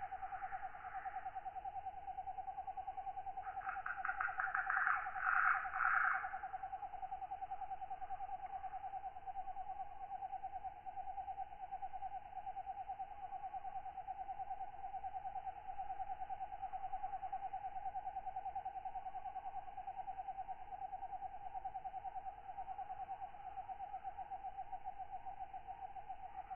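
Night insect chorus: a steady, fast-pulsing trill runs throughout, while katydids call in rapid pulsed rasps, loudest a few seconds in and briefly at the start.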